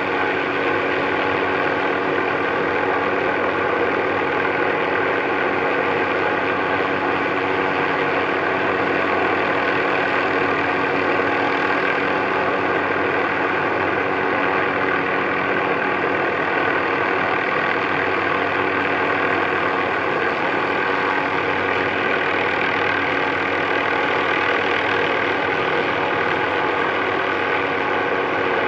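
MD530F helicopter's turbine engine and rotors running steadily in flight, a constant drone with several steady whining tones.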